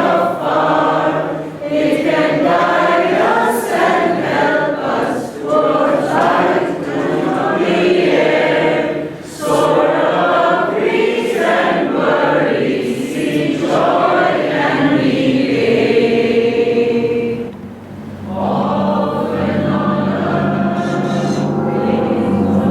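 A group of voices singing a devotional chant together, phrase after phrase with short breaks between them. After a brief pause near the end the singing resumes over steady held low notes.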